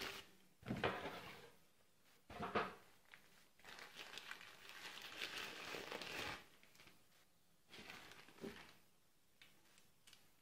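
Soft white wrapping paper rustling and crinkling as it is pulled off a new camera body. The sound comes in several bursts, sharpest about a second in and at two and a half seconds, with a longer crinkle after that. It turns to a few quieter handling rustles and goes quiet near the end.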